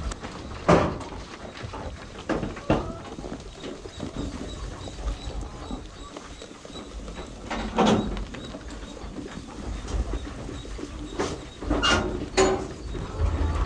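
Sheep bleating in a shed, about five separate calls, two of them close together near the end, over a steady low rumble.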